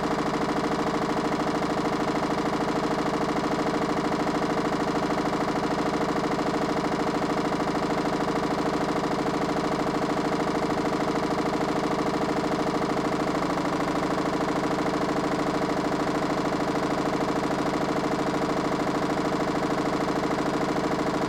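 Mini washing machine motor running with a steady, even hum. The pitch of its lower tones shifts slightly about 13 seconds in.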